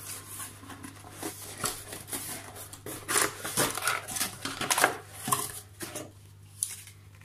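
Cardboard packaging being handled: box flaps and cardboard inserts rustling and scraping around a boxed UV steriliser, with sharp crinkles and knocks, busiest and loudest about three to five seconds in.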